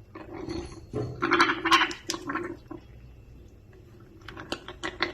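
Baby parrot being hand-fed, making raspy, squelching feeding noises for a couple of seconds, followed by a few sharp clicks near the end.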